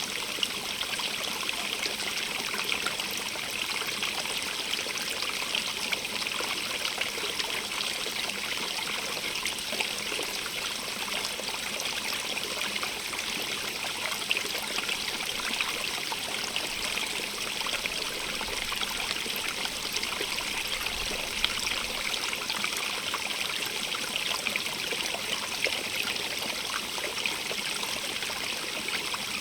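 Stream running steadily over stones, a continuous splashing and trickling rush with small droplet-like splashes throughout.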